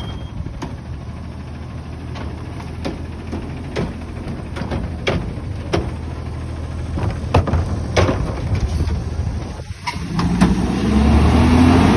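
Natural-gas Autocar ACX garbage truck's engine running while its Curotto Can arm lifts and dumps a trash cart, with a series of sharp knocks and bangs from the cart and arm. Near the end the engine revs up, its pitch rising.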